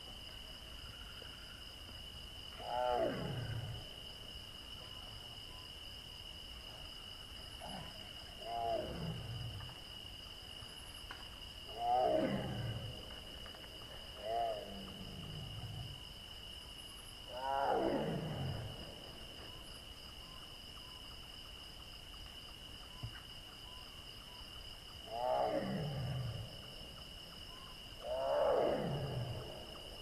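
Bengal tiger roaring, seven calls each falling from high to low pitch over about a second, with gaps of a few seconds between them, over a steady high drone of crickets.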